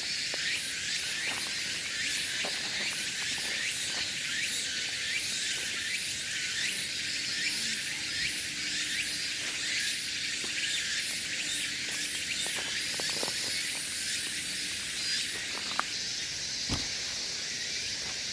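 Dense, steady chorus of insects, shrill and high, with quick repeated chirps running through it. Two short knocks sound near the end.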